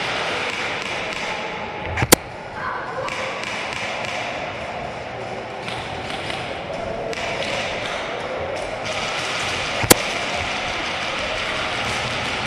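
Busy indoor airsoft arena: a steady din of distant voices and play echoing in a large hall, broken twice by a single sharp crack, about eight seconds apart.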